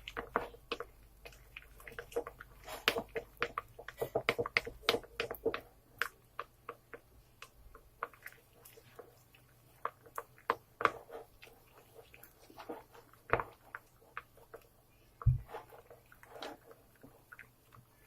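Glue, shaving foam and food colouring being stirred in a bowl for fluffy slime: irregular wet squelches and clicks of the stirring utensil, busiest in the first six seconds and sparser after, with a couple of low knocks later on.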